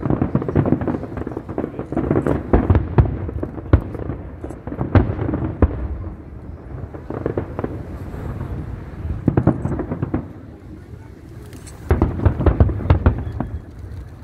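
Aerial firework shells bursting in irregular volleys of sharp bangs over a low rumble, easing off about ten seconds in before another dense volley.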